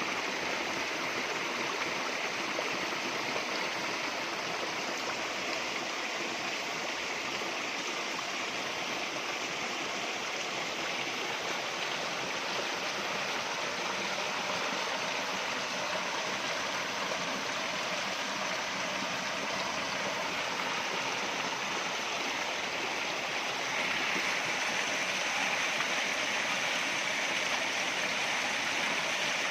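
Stream water rushing steadily over rocks, a little louder about 24 seconds in.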